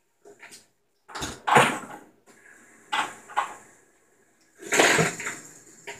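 Fidget spinners clacking against each other and the countertop as they are stacked into a tower, in about four short bursts of clatter with pauses between.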